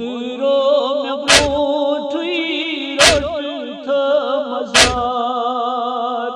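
Male voice chanting a noha, a Shia lament, in long held wavering lines, with three heavy thumps about every second and three-quarters, the rhythm of matam chest-beating.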